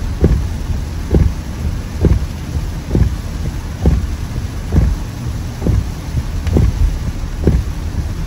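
Car windscreen wipers sweeping at speed, a regular thump a little under once a second, over the steady low rumble of tyres on a waterlogged road in heavy rain, heard from inside the car.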